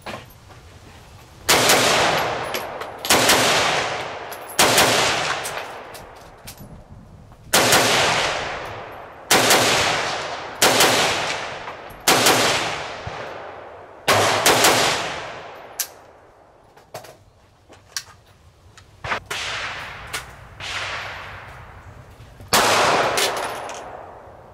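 Gunfire on a shooting range: about nine loud single shots fired one to three seconds apart, each trailing off in a long echo, with a few quieter shots in between.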